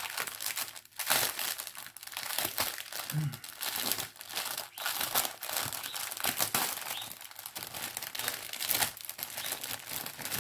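Plastic packaging of a diamond painting kit crinkling and rustling continuously as its contents, small bags of round drills, are handled and unpacked.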